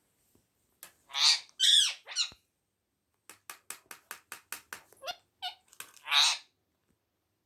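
Pet parrot squawking: three loud, harsh calls in quick succession, then a fast run of about a dozen short clicks, then one more loud squawk near the end.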